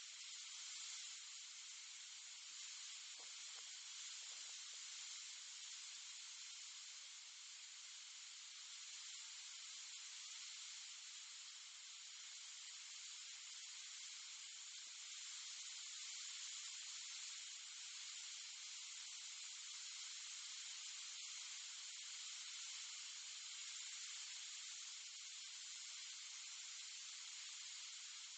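Faint, steady hiss with nothing else heard: the recording's background noise in a still moment.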